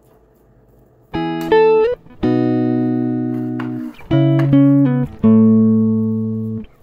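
Background music: slow plucked guitar notes that start sharply and ring out, beginning about a second in, with a small upward slide near the start.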